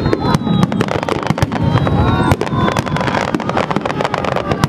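Aerial fireworks going off continuously: a dense, rapid run of bangs and crackles with a few thin whistling tones among them.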